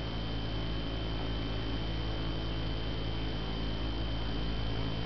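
Steady low electrical hum with a thin, constant high-pitched whine above it; nothing else happens.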